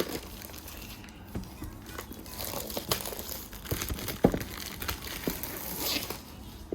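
Packaging crinkling and rustling as a keyboard's box is unpacked by hand, with a few light knocks. The rustling is loudest from about two to six seconds in.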